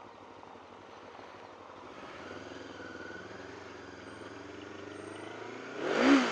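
1999 Honda CB500S parallel-twin engine pulling away slowly from a helmet-camera point of view, the note firming up and rising a little from about two seconds in. Near the end a short, loud sound sweeps up and back down in pitch.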